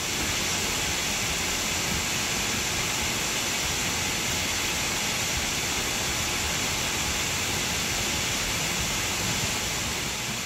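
Stock cooler fan of a Sapphire ATI HD 3850 AGP graphics card running flat out in a PC: a steady, loud rush of air with no change in pitch. This stock cooler is the one its owner calls ridiculously loud.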